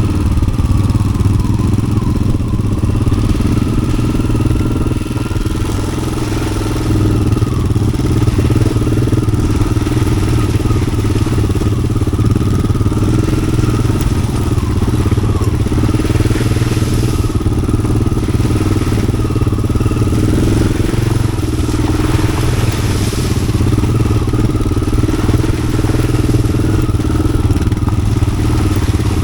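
Yamaha XT600's air-cooled single-cylinder four-stroke engine running under way through an aftermarket Arrow exhaust, with the throttle easing off briefly around five to seven seconds in.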